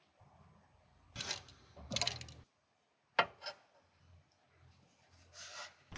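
Metal tongs scraping cooked beef and peppers out of a small non-stick Ridge Monkey pan in two short scrapes, then a sharp clack about three seconds in as the tongs are dropped into the empty pan. A soft rustle near the end as a tortilla wrap is folded.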